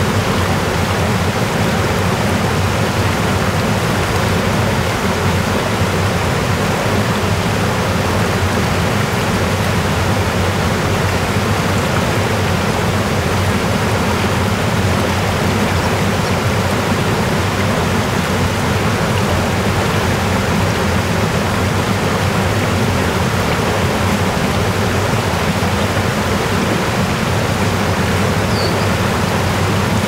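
Fast stream water rushing and churning through a rocky channel: a steady, unbroken rush.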